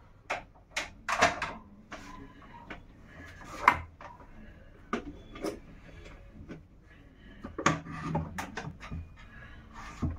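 Irregular clicks, taps and knocks of kitchen things being handled and set down on a counter, a dozen or so short hits with the sharpest about a third of the way in.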